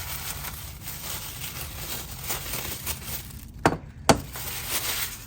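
Packaging and parts being handled and rustled, with two sharp knocks in quick succession about three and a half seconds in.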